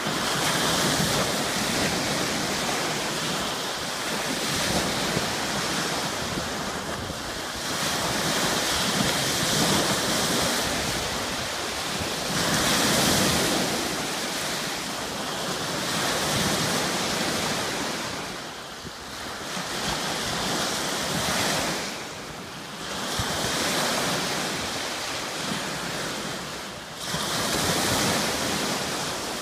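Small Lake Huron waves breaking and washing up onto a sandy, pebbly beach. The surf is a continuous hiss that swells and eases every few seconds as each wave comes in.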